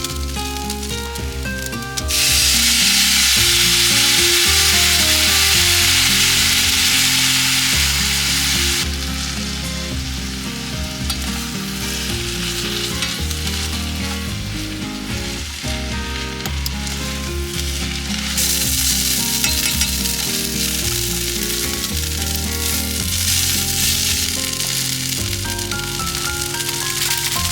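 Food frying in a hot pan, sizzling loudly from about two seconds in until about nine seconds, then again from about eighteen seconds, over background music.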